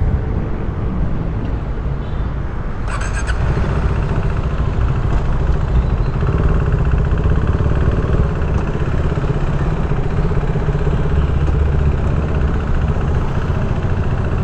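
KTM RC 390 single-cylinder motorcycle engine running steadily, its note growing a little fuller a few seconds in.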